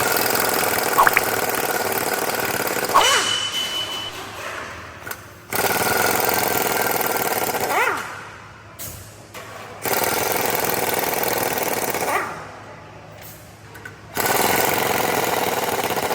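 A power tool run in four bursts of about two seconds each, with quieter gaps between them and a short pitch sweep as each burst starts and stops.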